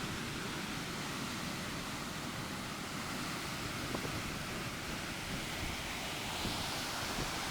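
Sea surf washing ashore, a steady rushing noise with wind buffeting the microphone, swelling slightly near the end.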